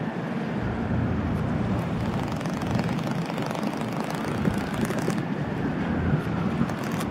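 Steady low rumble of a triple-deck harbour ferry's engines under way, mixed with wind buffeting the microphone and choppy harbour water.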